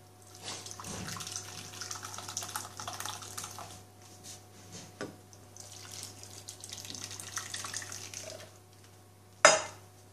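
Hot, milky rice pudding mixture poured from a steel saucepan into glass baking dishes, splashing in two pours of about three seconds each. A single sharp knock near the end.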